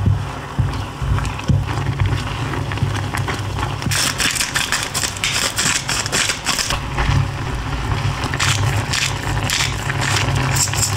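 Tomato sauce with mushrooms bubbling in a small saucepan on the hob, with a spatula stirring against the pan at first. About four seconds in a salt grinder is turned for a few seconds with a gritty crunching, and near the end a pepper grinder gives several shorter grinds.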